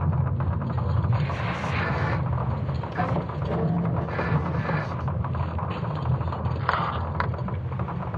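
Sonification of Earth's magnetic field during the Laschamp reversal, built from natural recordings such as creaking wood and falling rocks: a steady deep rumble under dense creaking and crackling clicks, with a brighter creak about seven seconds in.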